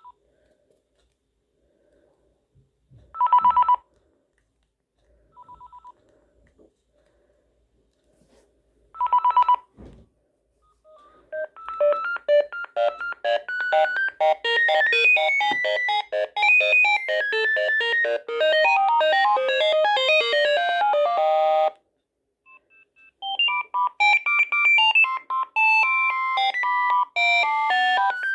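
Sagem MW 3020 mobile phone: a few short electronic beeps, then a ringtone melody of quick electronic notes plays for about ten seconds and stops abruptly. After a short pause a second ringtone melody begins.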